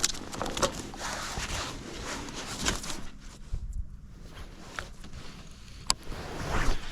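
Choppy water slapping and knocking against the boat, with irregular knocks for the first three seconds, a single sharp click about six seconds in, and a louder splash near the end.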